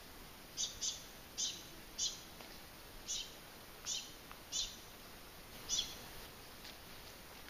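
A bird calling in the forest: about eight short, high chirps, irregularly spaced, over a faint steady hiss.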